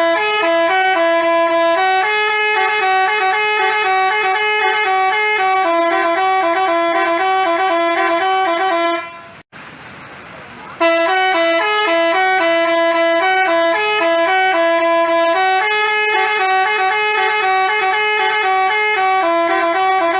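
Multi-tone Basuri 'telolet' bus horn playing a tune in stepped notes. About nine seconds in the tune breaks off for nearly two seconds, leaving only a faint hiss, then comes back abruptly and carries on.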